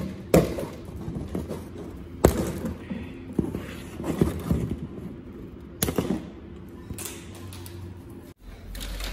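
Handling of a large cardboard shipping box being opened: three sharp knocks about a second and a half to three and a half seconds apart, with lighter cardboard clatter and rustling in between.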